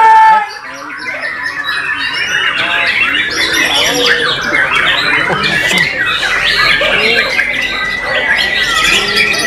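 White-rumped shamas singing loudly together, a dense, continuous chorus of overlapping whistles, trills and harsh chattering calls. A loud burst at the very start cuts off about half a second in.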